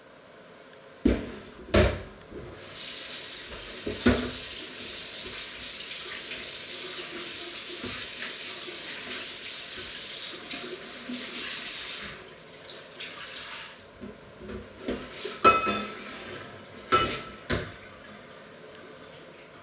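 Water running from a kitchen tap into a stainless-steel sink while dishes are washed by hand. The tap comes on about two and a half seconds in and is shut off about twelve seconds in, with dishes knocking against the sink before it and a quick run of clatters after it.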